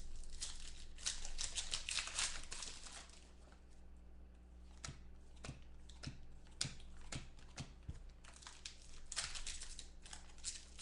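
Foil wrappers of football trading card packs crinkling and tearing as packs are opened, with a run of sharp clicks in the middle as the cards are handled.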